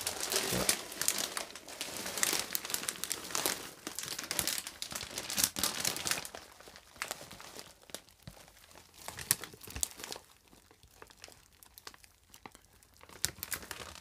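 Plastic bag of Unicharm Deo-Toilet cat litter crinkling as it is lifted and handled. The crinkling is dense for about the first seven seconds, then thins to scattered crackles.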